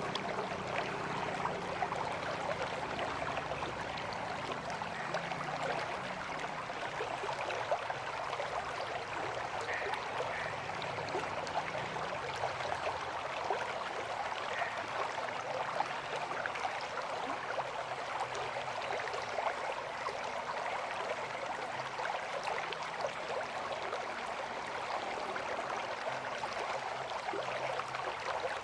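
River water flowing steadily, an even rushing sound full of small splashes and gurgles.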